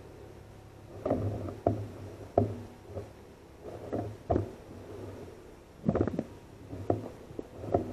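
Footsteps at walking pace with knocks from the air rifle being carried, heard close up through the scope-mounted recorder, about one or two a second starting about a second in, over a steady low hum.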